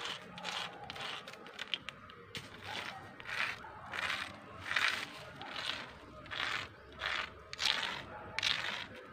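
A stone scratching letters into a rock: a series of short, irregular scraping strokes, about one or two a second.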